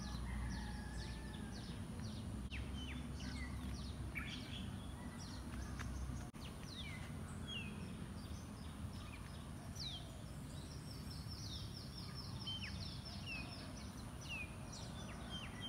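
Small birds chirping: many short, sharp down-slurred calls, with a quick trill about ten seconds in, over a steady low background rumble.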